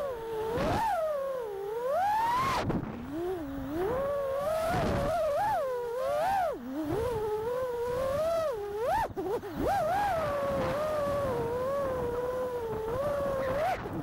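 FPV quadcopter's 6S brushless motors (1800KV) and propellers whining, the pitch swooping up and down constantly as the throttle changes.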